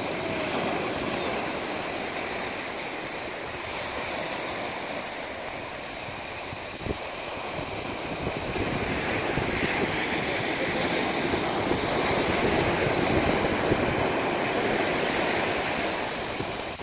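Ocean surf breaking and washing up a sandy beach, a steady rushing wash that swells louder through the second half. One brief click about seven seconds in.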